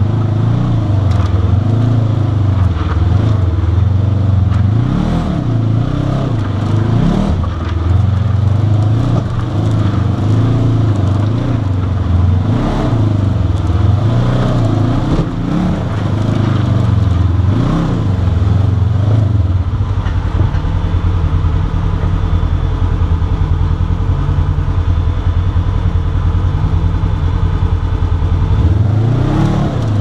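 Polaris RZR side-by-side engine crawling a rocky trail in low gear, its revs rising and falling with the throttle. From about two-thirds of the way in it settles to a lower, steadier note, then revs up again near the end.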